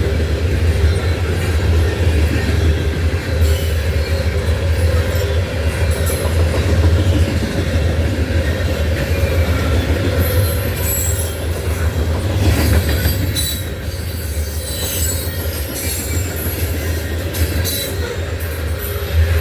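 A loaded Norfolk Southern coal train's hopper cars rolling past with a steady low rumble. High-pitched wheel squeal comes in and out over the second half.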